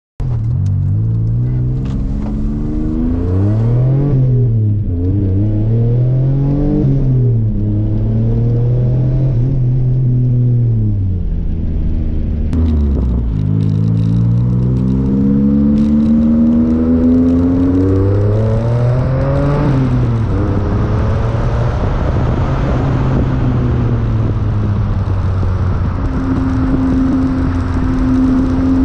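Toyota MR2 Spyder's twin-turbo 1MZ-FE 3.0-litre V6 being driven hard: the engine note climbs and falls back again and again as it accelerates and comes off the throttle, with one sharp drop about halfway through, and settles to a steady note near the end.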